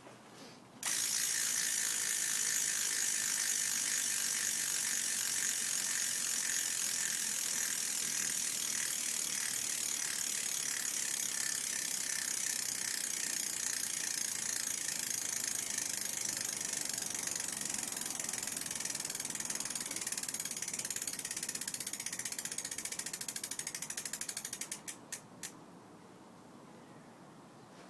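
BMX rear hub freewheeling as the wheel spins with no chain on: rapid, steady ratchet clicking of the hub's pawls. It starts about a second in and ends near the end with a few last separate clicks as the wheel slows and stops.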